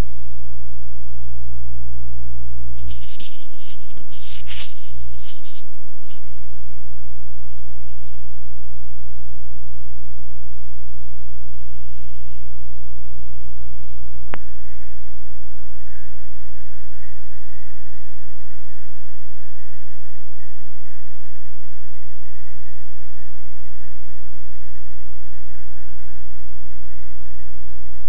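Steady low electrical hum with hiss from the recording setup. There is a brief rustle about three to five seconds in and one sharp click about halfway, after which a faint higher hiss joins.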